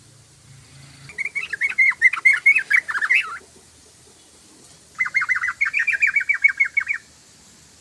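Yellow-vented bulbul (trucukan) singing two quick bursts of rapid, bubbling, chattering notes, each about two seconds long, with a short pause between them.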